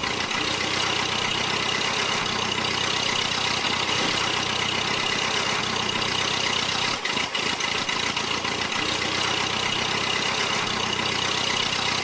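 Small motor of a miniature toy tractor running steadily as it drives along pulling a loaded trolley, with a thin steady whine over an even running noise.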